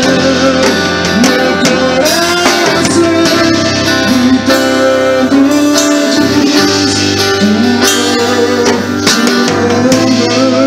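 A man singing a song into a microphone, amplified, over guitar accompaniment.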